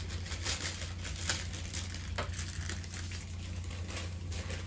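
Plastic bag of dry muffin mix crinkling as it is handled and emptied into a stainless steel mixing bowl, the rustling mostly in the first couple of seconds, over a steady low hum.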